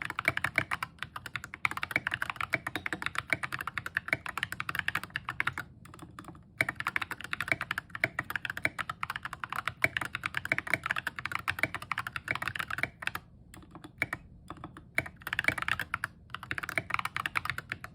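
Fast continuous typing on a tape-modded 60% mechanical keyboard with stock Ajazz Banana tactile switches and SA-profile keycaps. Dense keystroke clicks pause briefly about six seconds in, thin out to scattered single presses around two-thirds of the way through, then pick up speed again.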